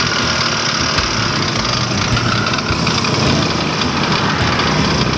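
Small 50 cc two-stroke mini dirt bike engine running steadily at idle, the bike standing still.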